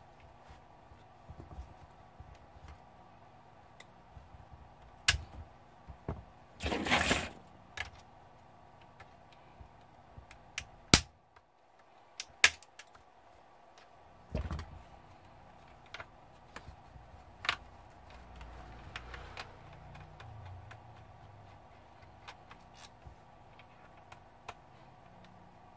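Scattered sharp clicks and taps of a screwdriver and screws on a laptop's plastic bottom case as it is screwed back together. There is a brief noisy scraping burst about seven seconds in.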